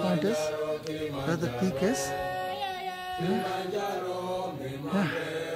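A group of voices chanting a song in unison, the notes held and sliding between pitches.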